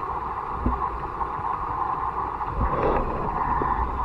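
Creek water rushing steadily, heard from an underwater camera on the streambed. It swells briefly with a few knocks just under three seconds in.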